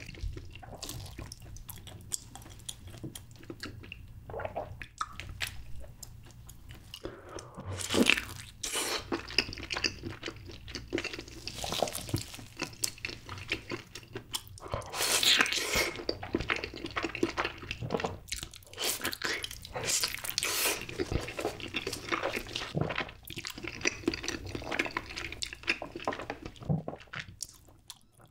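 Close-miked eating sounds: biting and chewing a chunk of whole Spam topped with cheese sauce, with wet, sticky mouth sounds and crisp little clicks. The loudest bites come about eight seconds in and again around fifteen seconds in.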